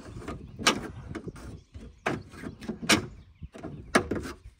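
Four sharp metal clunks about a second apart from a 1986 Dodge Lancer's latch being worked, a latch that no longer catches.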